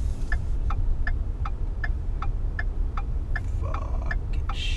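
Pickup truck's turn-signal indicator ticking steadily, a little over two ticks a second, over the low rumble of the engine inside the cab.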